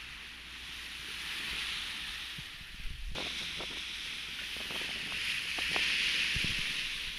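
Sea water rushing along a sailboat's hull under sail, a steady hiss mixed with wind, with a few small knocks; it changes and grows louder about three seconds in.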